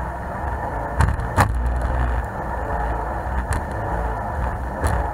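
Jet boat's engine and jet drive running steadily under way through rapids, a low rumble. About four sharp knocks cut through it, the loudest about a second and a half in.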